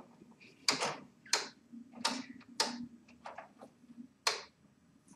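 A series of sharp, unevenly spaced clicks and ticks, about eight in all, with a faint low hum under them around the middle.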